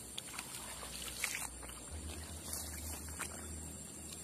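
Light handling noises of a fishing rod and spinning reel, with faint water sounds, as a soft frog lure is fished across a canal. A low steady hum comes in about two seconds in.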